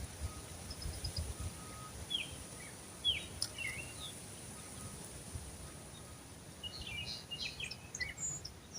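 Birds chirping outdoors: a few short chirps two to four seconds in, then a busier flurry of chirps near the end, over a faint low rumble.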